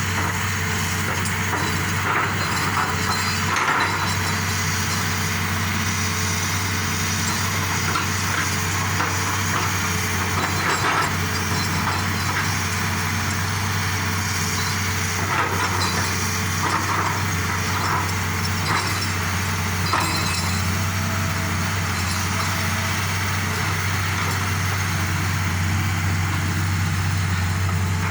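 Excavator diesel engine running steadily under load, with scattered cracks and knocks of rock being broken and moved, a few of them standing out clearly.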